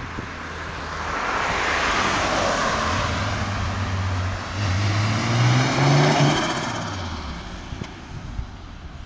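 Turbocharged VW Vento with an R32 VR6 engine driving past under acceleration. The engine note climbs in pitch about five seconds in, is loudest about six seconds in, then fades as the car moves away.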